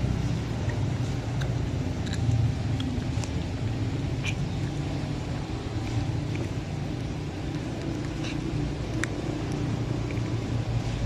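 Steady low background rumble with scattered faint short ticks and clicks; no meowing.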